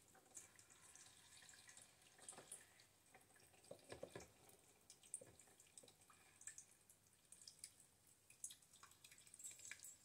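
Faint water trickling and dripping from a plastic pitcher into the fill trough of a countertop dishwasher, filling its water tank by hand, with irregular small drips.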